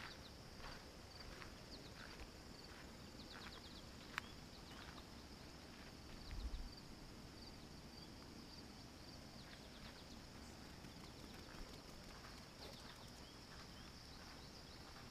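Faint footsteps on a dirt and gravel road at an easy walking pace, about one step every 0.7 seconds, under a steady high chirring of insects. A single sharp click comes about four seconds in, and a brief low bump comes about six and a half seconds in.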